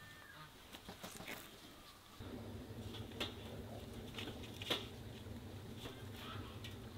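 Light clicks and knocks of split firewood and a plant pot being handled on a metal-framed firewood rack, a few separate knocks with the sharpest about four and a half seconds in, over a low steady hum that starts about two seconds in.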